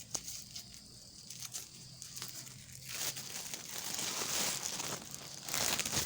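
Rustling and crinkling, faint at first and much louder from about halfway through.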